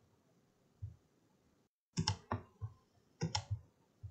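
Computer mouse buttons clicking. A soft knock comes just under a second in, then sharp clicks in quick clusters about two seconds in and again a little after three seconds.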